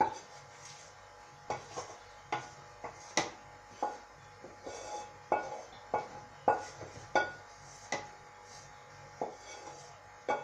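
Metal kitchen utensils knocking and clinking against pots and dishes: irregular sharp knocks, about one to two a second, each ringing briefly.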